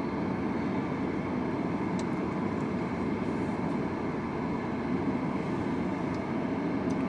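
Steady low rumbling background noise, with a few faint clicks over it.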